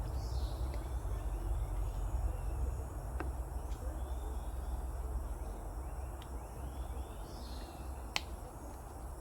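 Forest ambience: a steady low rumble with a faint high bird call near the start and again about seven seconds in, and a few sharp clicks, the loudest near the end.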